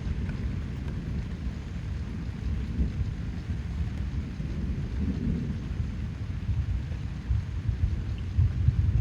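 Rain falling on foliage, a faint even patter over a strong, fluctuating low rumble.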